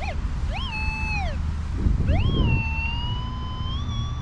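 Minelab Vanquish 540 metal detector sounding target tones over a buried target. A short gliding chirp under a second in, then a long held tone from about two seconds in that wavers and dips in pitch near the end. A low steady rumble lies beneath, with a brief rustle about two seconds in.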